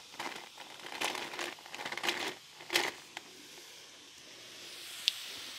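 Metal straw worked up and down through the lid of a plastic tumbler, making crackly, scraping rustles for about three seconds. There is a sharper click near the end of the rustling and a single short tick about five seconds in.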